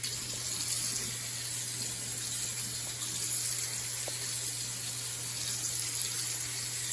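Kitchen faucet running steadily into the sink, water splashing down the drain to rinse away cleaning foam; the water comes on abruptly at the start.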